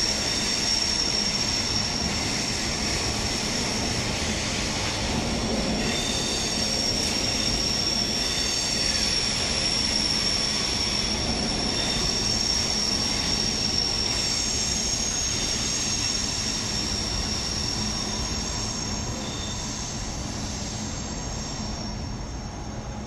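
Steel train wheels squealing on the rails as a train approaches: a steady, high-pitched squeal of several tones that thins out near the end, over a faint low hum.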